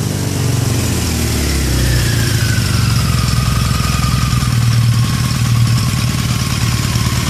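Yamaha XJ700 Maxim's inline-four engine idling steadily after its revs fall back in the first second or so. It is running evenly with its carburettors synced.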